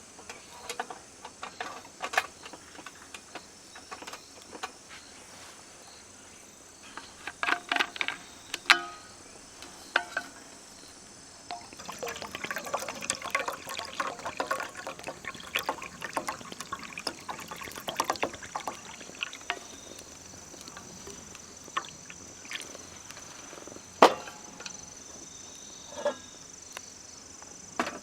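Scattered clinks and knocks of things being handled, then liquid pouring for several seconds before a few more knocks, with a steady high trill underneath.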